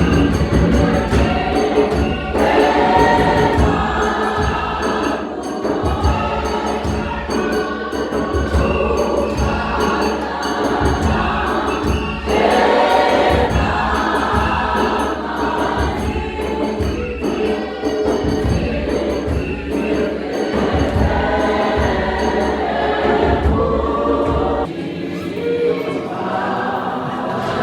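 A choir singing gospel music, many voices together, over a steady low bass that drops out near the end.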